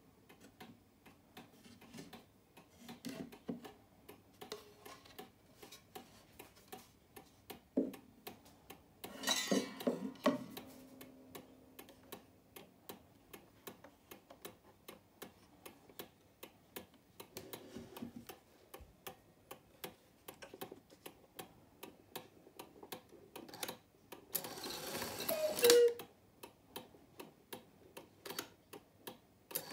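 Mantel cuckoo clock's movement ticking steadily, with a brief rustle of handling about a third of the way in. Near the end the strike train whirs and the bellows give a two-note cuckoo call, higher then lower.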